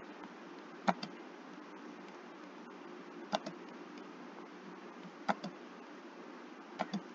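Computer mouse clicking: single sharp clicks about a second in, at about three and a half seconds and just past five seconds, then two quick clicks near the end, over a steady low hum of microphone background noise.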